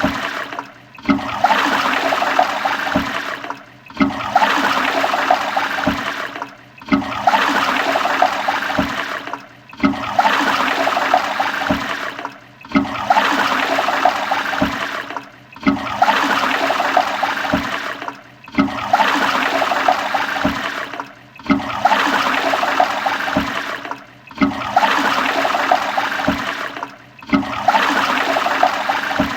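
Toilet flushing over and over, about ten times: each flush is a sudden rush of water that fades over roughly three seconds before a brief break and the next flush.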